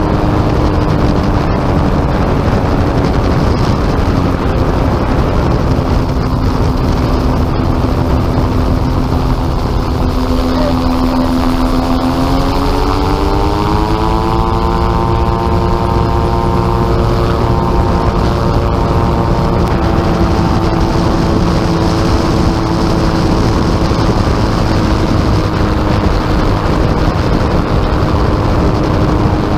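Gyrocopter engine and pusher propeller running with wind rushing over the microphone. The engine note sinks slowly for about the first ten seconds, rises over a few seconds near the middle, then holds steady.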